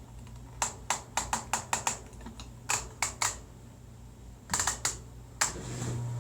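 A series of sharp plastic clicks from the controls of a Splendide 2000 washer-dryer combo being worked, in irregular runs of quick clicks. Near the end a steady low hum starts up from the machine.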